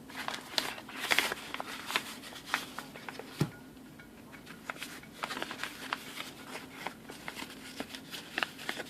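Handling noises from a multitool's sheath with a Velcro closure: scattered rustles, taps and clicks, with a denser rustle about a second in and a single sharper knock a few seconds in.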